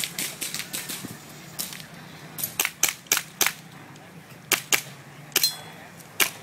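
A pistol fired in a fast practical-shooting string: about eight sharp shots, mostly in quick pairs, beginning about two and a half seconds in.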